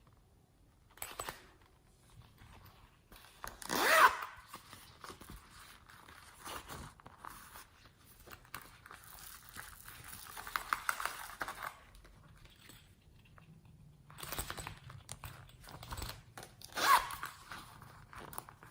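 Slime being stretched and kneaded by hand: irregular sticky crackling and tearing sounds, with two louder squelches about four seconds in and near the end.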